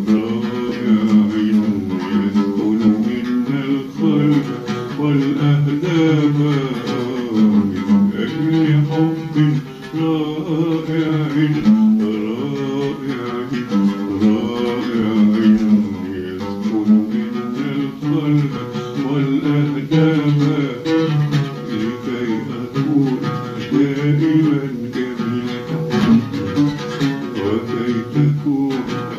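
Oud played as a continuous, flowing melodic passage of plucked notes in Arabic maqam style, as a composer works through a song's melody in rehearsal.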